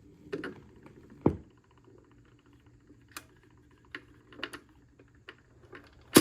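Irregular clicks and knocks from a BSR McDonald 4800 record changer being handled, over a faint low hum. One loud knock comes about a second in and the loudest comes at the very end.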